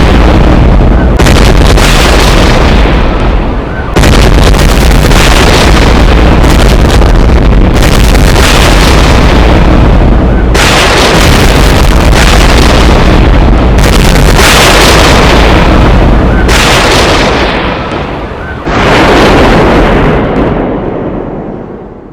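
A string of explosion sound effects, loud enough to distort. A new blast hits every two to four seconds and rumbles on until the next, about seven in all. The last one fades away near the end.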